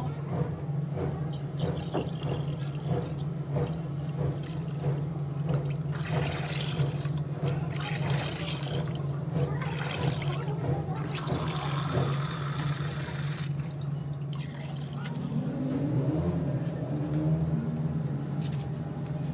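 Water poured from a plastic jug into a half-full plastic drum, splashing in a few pours, the longest about ten to thirteen seconds in. A steady low hum runs under it.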